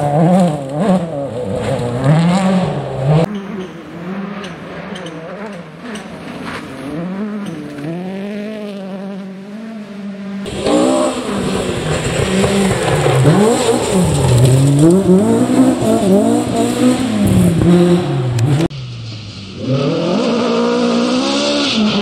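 Rally cars driven flat out on a gravel forest stage, engines revving hard and dropping back through gear changes as they pass. Loose gravel and dirt spray from the tyres. The sound changes abruptly several times as it cuts from one car to the next.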